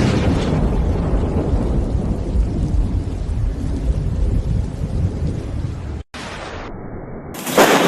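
Thunder rolling in a deep, sustained rumble that slowly eases over about six seconds. It cuts out for an instant, goes on more quietly, and near the end a new loud thunderclap breaks in with a steady hiss of rain.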